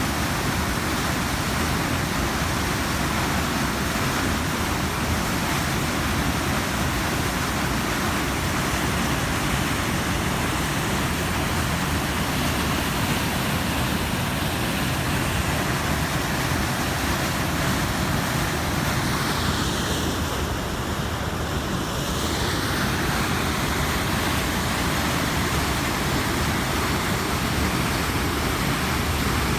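Steady rushing of a river waterfall, falling water making an even, loud hiss, which dulls briefly in its highest part about twenty seconds in.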